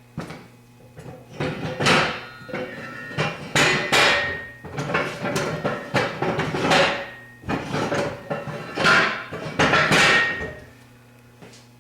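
Steel clanking and ringing as an anvil stand's square-tube tower, with the anvil on it, is lifted, turned and lowered so its welded steel wings drop back onto the heavy-wall tubing. A series of heavy metal clanks over several seconds, some ringing briefly.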